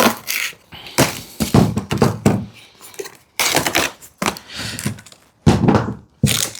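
Cardboard packaging being forced open and handled, in several sudden bursts of knocks, rustles and crunching: a compartment of an advent calendar box being opened to get at the toy parts inside.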